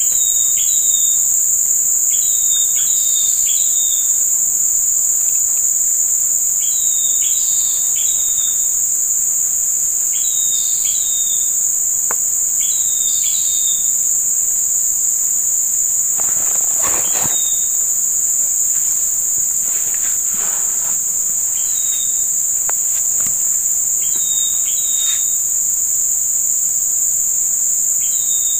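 Insects, such as crickets or cicadas, making a steady high-pitched drone. Short chirps come in pairs and threes every couple of seconds.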